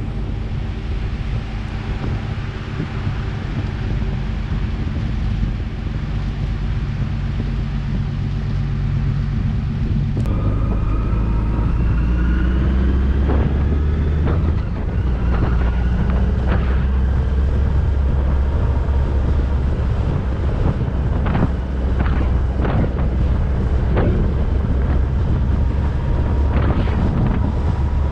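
Vehicle engine running steadily with wind noise on the microphone. About ten seconds in, the engine note changes and a rising whine comes in.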